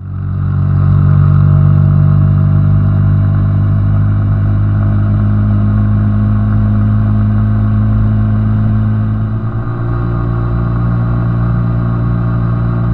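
Small Honda 90cc motorcycle engine running while riding, a steady engine note that eases off slightly about three-quarters of the way through.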